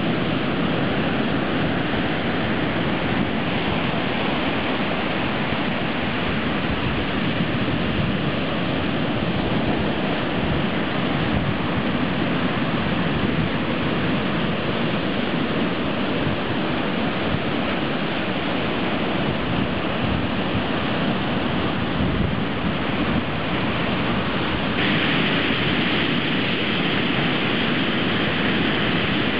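Heavy ocean surf breaking and washing ashore: a steady roar of crashing waves and foam, with a slightly brighter hiss near the end.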